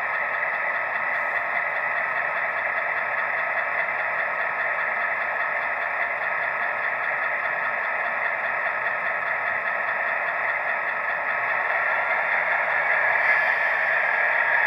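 HO scale model diesel locomotive standing with its headlights on, giving off a steady mechanical running sound that grows a little louder near the end.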